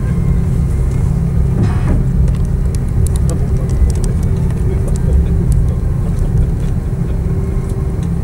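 Cabin noise of an Airbus A340-313 taxiing, heard from a seat behind the wing: a steady low rumble of the engines and rolling gear with a steady hum over it. There is a brief swell of noise about two seconds in, and light clicks of cabin fittings through the middle.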